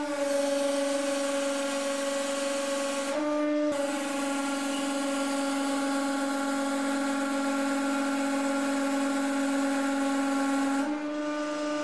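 A 150-ton hydraulic press's pump and motor run under load as the ram slowly crushes a brass cylinder, making a steady humming whine. Its pitch shifts briefly about three seconds in, and the sound thins and changes about a second before the end.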